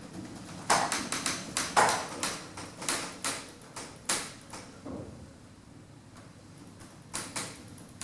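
A quick run of sharp clicks and knocks for a few seconds, then a quieter spell and two more clicks near the end, from an early-1980s Evans passenger lift in operation.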